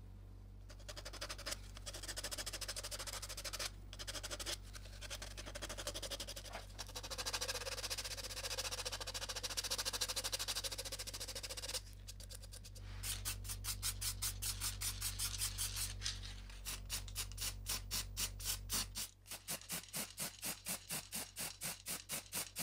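Sandpaper being rubbed by hand over a plastic toy cement-mixer drum. For the first half it is a continuous scratchy rubbing with short breaks. It then turns into quick back-and-forth strokes, about three a second.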